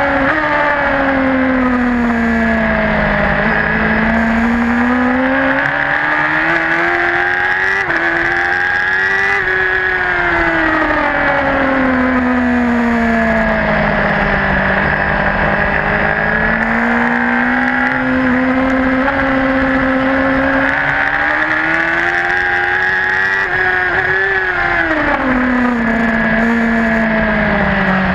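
Racing superbike engine heard from a camera mounted on the bike, running hard at track speed. Its note climbs in long rises as the bike accelerates and falls away as it slows for the corners, several times over.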